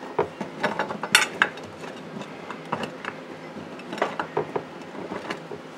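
Tater tots being set by hand into a glass casserole dish: light, irregular clicks and taps of the tots against the glass and each other, the sharpest a little over a second in.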